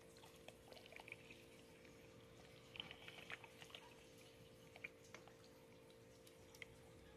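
Very faint sloshing and dripping of brine as it is stirred in a stainless steel pot with a plastic spoon, with a few light clicks of the spoon against the pot. A faint steady hum runs underneath.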